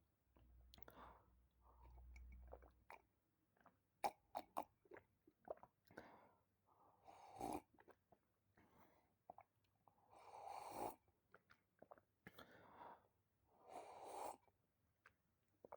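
Faint close-up mouth and breath sounds: a few small wet clicks, then several soft breathy puffs about half a second long, spaced a couple of seconds apart.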